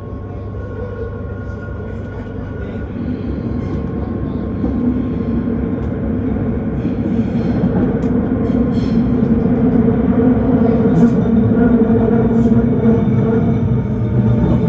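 Vienna S-Bahn electric train running, heard from inside the carriage. A steady rumble of wheels on rail grows gradually louder, with faint steady whining tones above it.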